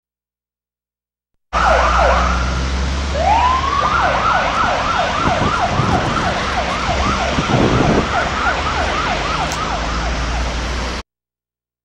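Electronic siren in a fast yelp, rapid rising-and-falling sweeps about three or four a second, from a motorcycle escort of batedores, over a steady low engine and traffic hum. It starts suddenly after about a second and a half of silence and cuts off abruptly near the end.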